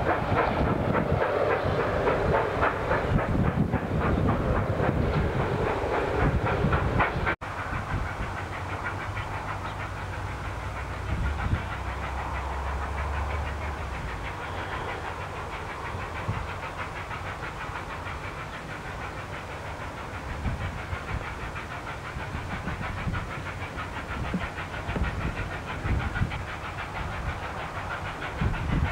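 Steam locomotive 3801 working, its exhaust beating in a fast, even rhythm with hissing steam. Loud for the first seven seconds, then after a sudden break it is heard more faintly in the distance, still working.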